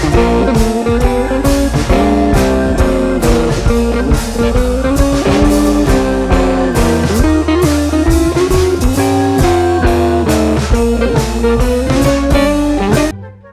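Background music: a guitar-led tune over drums with a steady beat, cutting off abruptly near the end.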